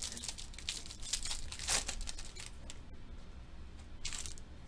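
Foil wrapper of a Panini Select basketball card pack being torn open and crinkled by hand: a run of quick, sharp crackles, loudest a little under two seconds in, with another burst near the end.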